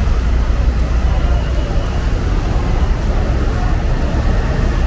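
Busy street ambience at a bus stand: a steady rumble of vehicle engines and traffic, with people talking in the background.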